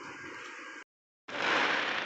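Distant fireworks crackling and rumbling as a steady noisy wash, cut off by a brief dead gap about a second in where two clips are joined, then swelling back louder and fading.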